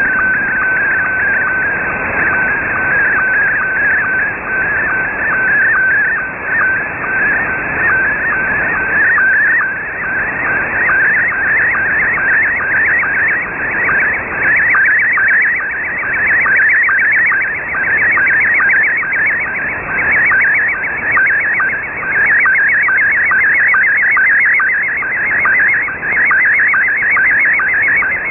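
Slow-scan television (SSTV) picture signal received over shortwave in upper sideband: a warbling, chirping tone that repeats in a fast, even rhythm, each repeat one line of the picture, over radio hiss. The tone sits lower and steadier at first and turns busier and higher from about a third of the way in.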